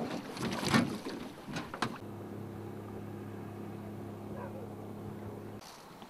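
Knocks and scuffs as a motorboat is pushed off a rocky shore, then a boat motor running steadily at low revs with a low, even hum that stops abruptly about a second before the end.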